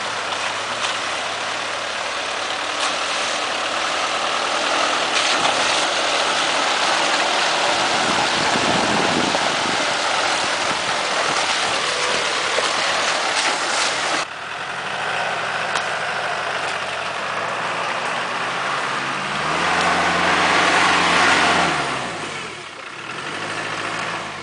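A 4x4 off-road vehicle's engine running as it drives through a shallow stream, with water splashing, passing close by about twelve seconds in. After an abrupt cut, a Land Rover Discovery's engine runs on a forest trail and revs up and falls back near the end.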